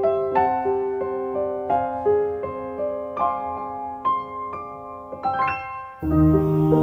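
Background music: a gentle solo piano melody of single struck notes that ring and fade, some held longer. Near the end it cuts over to an ambient track with a steady low drone.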